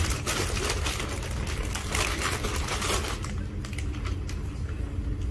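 Plastic shrink-wrap of a case of bottled water crinkling and crackling as a hand and a kitten push at it. The crackle is dense for about the first three seconds, then thins to scattered crackles.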